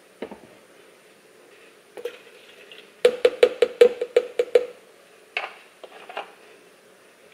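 A quick run of about eight sharp, hollow taps against the plastic Nutribullet blender cup, as something is knocked or tapped over its top while an ingredient goes in. A few single knocks of items set on the counter come before and after the run.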